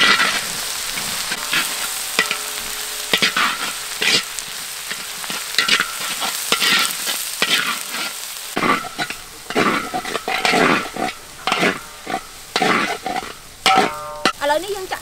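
Curry paste and shallots sizzling as they fry in hot oil in a large steel wok, with a metal ladle scraping and stirring across the pan in repeated strokes, about one or two a second.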